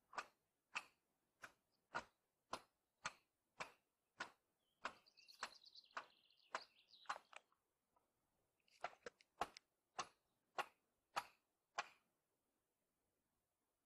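Hammer striking a nail into a wooden board by hand: sharp, evenly spaced blows about two a second, with a short pause about eight seconds in.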